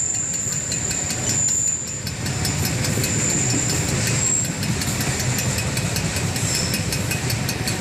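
Freight train of container wagons rolling past a level crossing: a steady low rumble of wheels on the rails with fast, regular ticking. Motorcycle engines idle close by.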